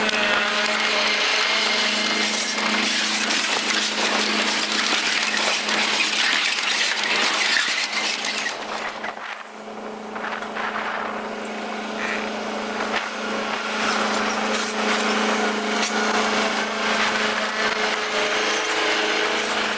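Diesel locomotive's engine running with a steady drone over a dense rattling noise as it rolls slowly over rough track. The sound drops away for a moment about halfway through, then comes back.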